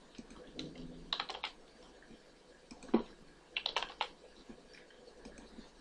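Computer keyboard keys tapped in a few short clusters of clicks, as single letters are typed one at a time.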